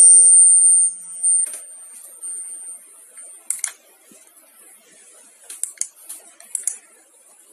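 A loud high hiss at the start, then a thin high tone that cuts off about three and a half seconds in, and a scatter of light sharp clicks, several close together near the end.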